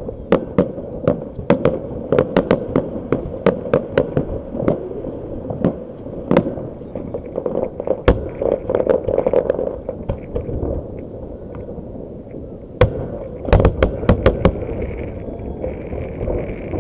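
Fireworks display: aerial shells bursting overhead in a rapid series of sharp bangs and crackles. The bangs thin out about ten seconds in, then come again in a quick cluster near the end.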